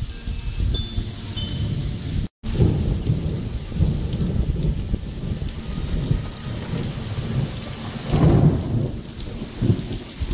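Heavy thunderstorm rain with hail pelting down in a dense, continuous clatter of impacts. The sound cuts out completely for a moment about two seconds in, and there is a louder low surge about eight seconds in.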